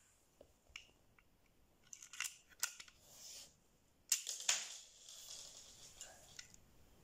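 Plastic clicks and snaps of a Lego brick pistol's mechanism as it is handled and triggered, a few light clicks and then the loudest snap about four seconds in.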